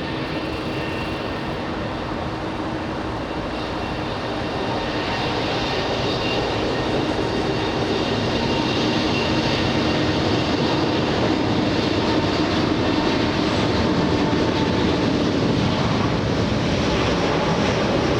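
Airbus A380 jet engines at takeoff power, a steady roar with a faint whine that grows gradually louder.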